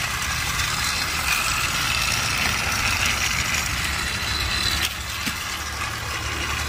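Motorized toy trains, a Percy engine among them, running around a plastic track with a steady mechanical whir.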